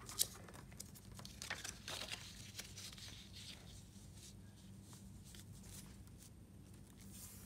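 Sheets of paper being handled: faint rustling and scraping as one sheet is laid onto a glued sheet and pressed flat by hand, with one soft knock just after the start.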